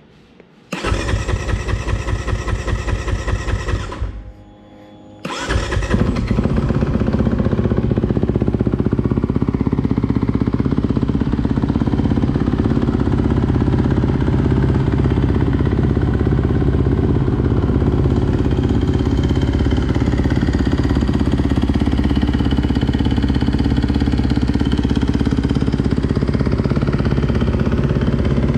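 Brand-new 2021 Kawasaki KX250 four-stroke single-cylinder engine on its first start: it is cranked for about three seconds without catching, stops, then catches about five seconds in and runs steadily.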